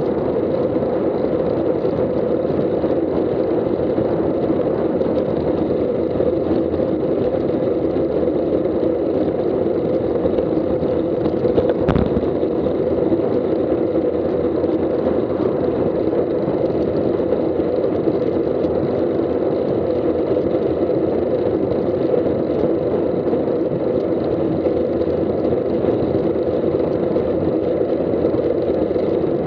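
Steady rush of wind and tyre noise from a road bike riding at about 20 mph, picked up through a bike-mounted Garmin Virb action camera, with a single sharp knock about twelve seconds in.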